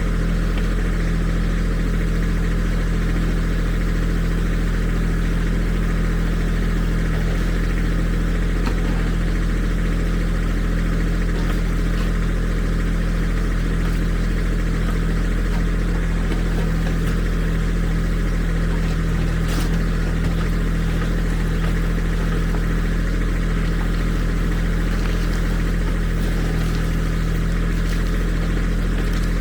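Kubota tractor's diesel engine running at a steady speed, without revving up or down.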